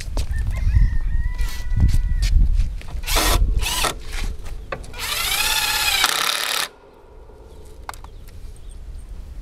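A cordless drill runs in short bursts, with clattering over the first few seconds. Past the middle a rooster crows once, for nearly two seconds.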